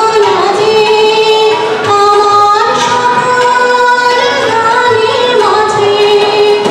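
A woman singing a melodic song into a microphone, holding long notes.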